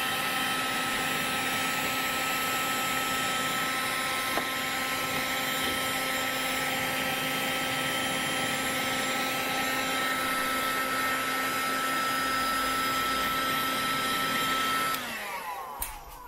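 Electric heat gun running steadily, its fan blowing hot air with a steady rush and whine while it heats a clear plastic sheet to mould it. About fifteen seconds in it is switched off and the whine falls in pitch as the fan spins down.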